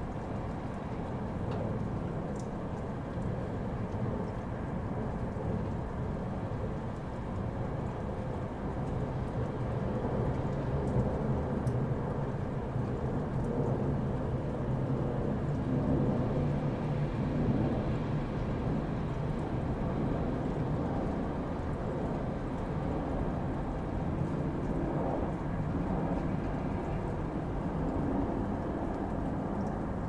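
Steady sleep-aid noise track: an even, deep rushing hiss weighted to the low pitches, swelling a little around the middle.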